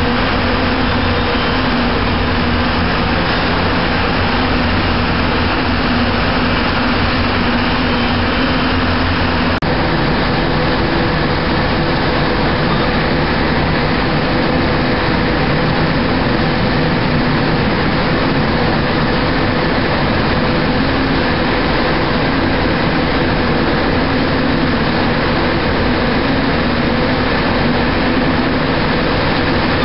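Steady drone of container-terminal machinery: automated guided vehicles and crane drives run as a continuous mechanical hum with several steady tones over a noisy wash. About ten seconds in there is a brief click, and the hum tones shift slightly.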